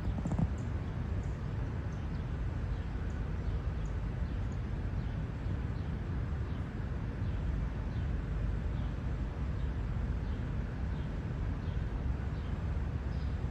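Steady low rumble of street traffic, with faint, short high chirps of small birds scattered throughout and a brief knock just after the start.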